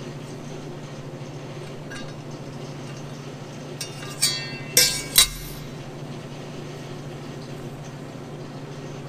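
Steel parts clinking against each other and the steel welding table as they are handled: a few sharp, ringing clinks around the middle, over a steady low hum.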